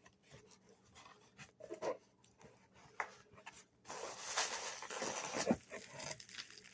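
Packaging being handled and unpacked: small clicks and taps, then a stretch of rustling and crinkling from about four seconds in as the wrapping is pulled apart.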